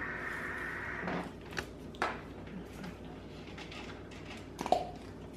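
A few short light knocks and clicks, the loudest one near the end. A steady hiss cuts off about a second in.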